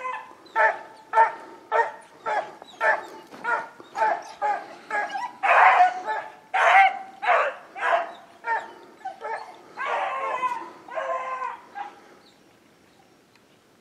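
Beagles baying on a rabbit's track: a run of short pitched bays about two a second, with a few longer drawn-out bays, fading out near the end.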